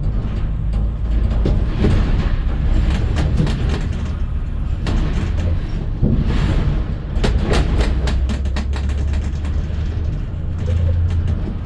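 A vehicle in motion: a steady low rumble with frequent rattles and knocks throughout.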